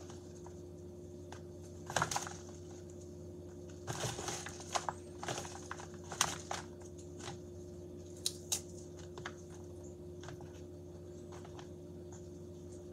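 Fresh salad leaves (spring mix) rustling and crinkling as they are picked through and pulled apart by hand in a plastic bowl, in scattered short bursts over a steady low hum.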